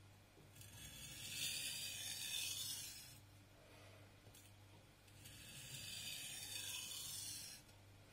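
A VG10 steel nakiri knife's edge scraping along a wet whetstone in sharpening strokes: two stretches of scraping hiss, each about two and a half seconds long, with a pause of about two seconds between them.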